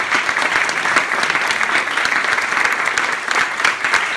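Theatre audience applauding steadily, many hands clapping together.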